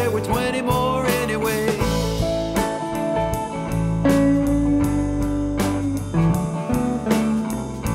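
Background music: a band song with guitar over a steady drum beat.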